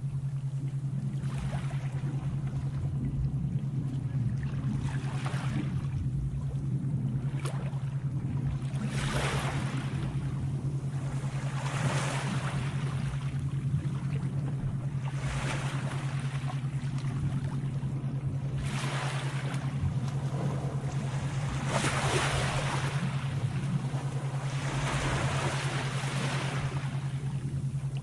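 Sea waves washing in and receding, a fresh surge about every three seconds, over a steady low hum.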